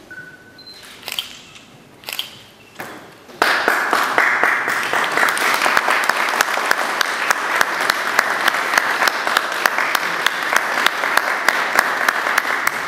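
A few brief rustles and knocks from papers being handled, then audience applause breaks out suddenly about three and a half seconds in and carries on steadily, many hands clapping at once.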